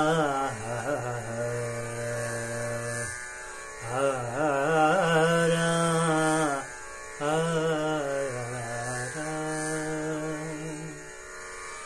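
A man singing a slow wordless passage, his voice sliding through ornamented runs between long steady held notes.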